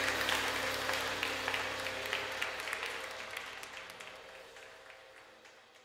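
A crowd applauding, a dense patter of many hands clapping, fading out steadily to near silence by the end.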